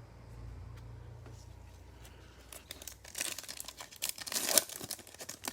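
Foil trading card pack wrapper being torn open and crinkled, crackling irregularly and getting louder from about three seconds in.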